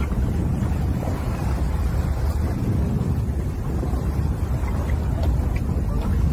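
Wind buffeting the microphone: a steady, loud low rumble with no clear pitch.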